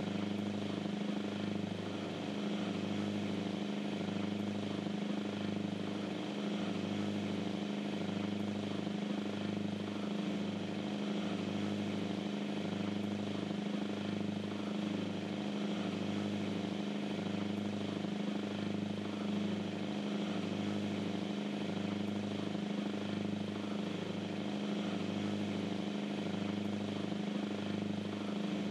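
Cruise boat's engines droning steadily at constant speed, with a slow regular throb in the low end.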